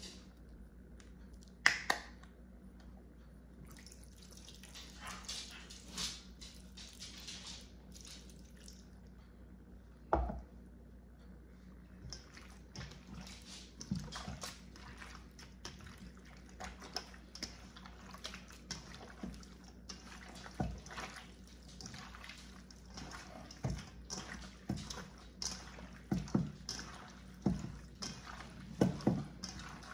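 Hands squeezing and mixing wet chopped meat in a stainless steel bowl: irregular wet squelches and smacks, with a few sharper knocks against the bowl.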